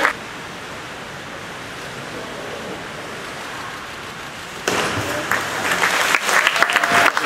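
Steady hiss of a large echoing pool hall, then about four and a half seconds in, spectators suddenly break into applause and cheering.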